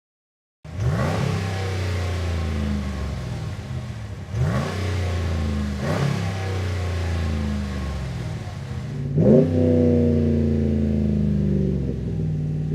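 Ram 1500's 5.7-litre Hemi V8 running through a Carven Progressive replacement muffler and 5-inch tips, idling and revved in four short blips that each fall back to idle. The sound comes in suddenly about half a second in.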